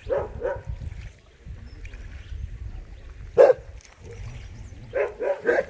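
A dog barking in short, sharp barks: two at the start, a single loudest bark a little past halfway, and three quick barks near the end.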